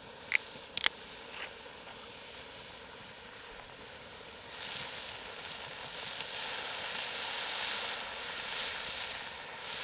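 Goulash meat sizzling in a cast-iron Dutch oven over a campfire, with two sharp clicks from the wine bottle being handled early on. From about four and a half seconds in, the sizzling grows louder and rougher as red wine is poured in to deglaze the pot.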